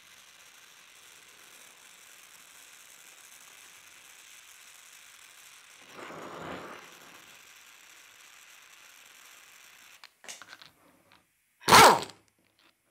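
Gas torch flame hissing steadily while it heats a steel differential carrier to loosen a bearing inner race, with a louder rough surge about six seconds in. The hiss cuts off near ten seconds, a few light clicks follow, then one sharp, loud metallic bang near the end.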